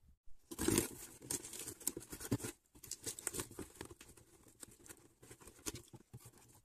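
A taped cardboard box being pulled open by hand: packing tape crackling and tearing and cardboard flaps scraping, a run of short crackles and rasps, loudest just under a second in.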